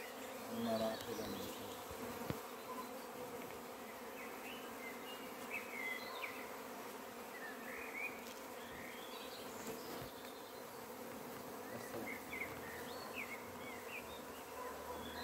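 Honeybees buzzing around small hives in a steady, continuous hum, with scattered short high chirps over it.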